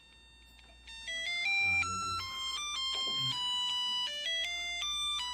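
Alarm tune from a homemade alarm-clock circuit's small speaker, starting about a second in: a string of clear electronic beep notes that step up and down in pitch, the alarm going off because the set alarm time has been reached.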